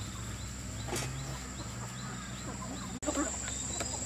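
Farmyard background: a small bird chirping over and over, about three times a second, over a steady high-pitched drone. Poultry calls start about three seconds in.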